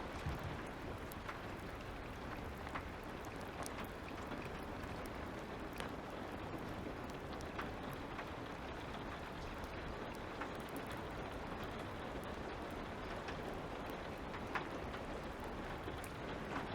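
Light rain falling steadily, with scattered small crackles from a fire.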